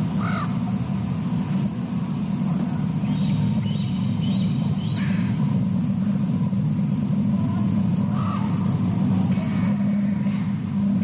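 Short bird calls, a few seconds apart with a small cluster partway through, over a steady low rumble.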